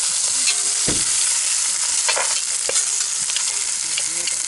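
Lamb shanks sizzling as they brown in a cast-iron Dutch oven over campfire coals. A few knocks and scrapes of metal tongs against the pot come as the shanks are turned.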